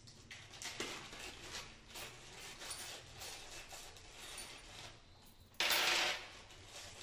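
Clear plastic bag crinkling as it is opened and handled, with small metal fittings (screws and square tubes) clinking inside it. A louder rustle of about half a second comes a little past five and a half seconds in.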